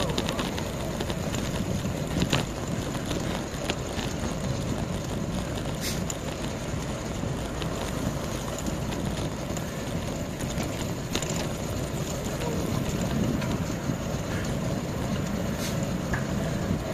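Wind rushing over the microphone of a camera riding along on a moving bicycle: a steady low rumble, with a few faint clicks.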